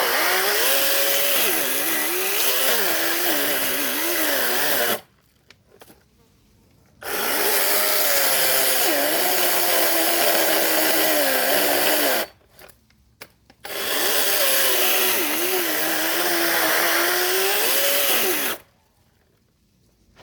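Power saw cutting branches in three runs, its motor pitch dipping and rising under load. Each run stops abruptly into near silence, with no idling between them.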